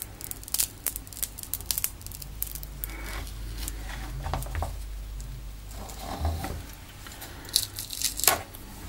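Glued plastic bezel of a first-generation Nexus 7 being prised off its cracked glass screen with plastic pry tools: a run of small clicks and crackles as the adhesive tape pulls apart, with louder snaps near the end.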